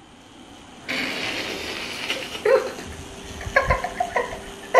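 Small kitten mewing in short, high cries, several times in the second half, over rustling from play.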